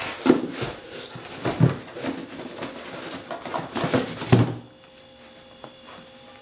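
Cardboard handling: a boxed camera scraped and knocked against the walls of a corrugated shipping carton as it is worked loose, with several thumps among the rubbing, the loudest about four seconds in. It stops after about four and a half seconds.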